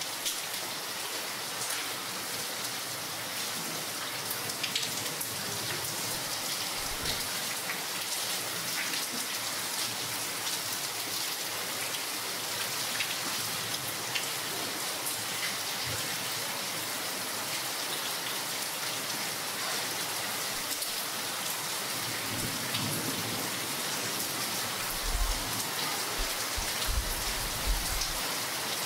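Steady rain falling on a clay tile roof: an even hiss with many scattered individual drop ticks. A few low thuds stand out near the end.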